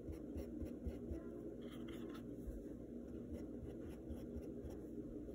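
Faint, irregular scratchy dabs of a small paintbrush laying short strokes of paint onto a stretched canvas, over a steady low room hum.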